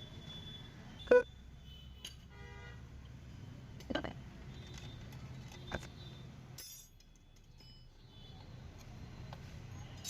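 Sharp metallic clinks of hand tools and loose bolts while the scooter's clutch-cover bolts are being taken out: the loudest about a second in, others near four and six seconds, with a short quick rattle around two seconds in. A low steady hum runs underneath.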